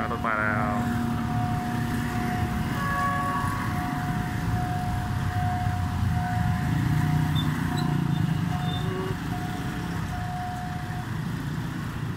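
Motorbike and car engines running as road traffic moves off across a railway level crossing once the barriers are up. A thin steady tone comes and goes through most of it, and there is a brief rising sweep just after the start.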